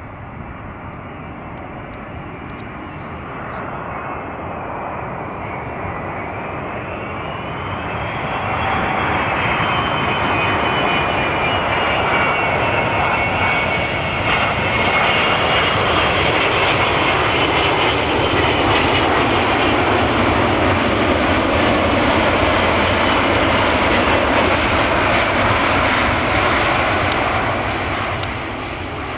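Jet airliner on landing approach: engine rush and whine build over the first several seconds, stay loud, and fade toward the end, with high whining tones that rise and then slowly drop in pitch as it passes.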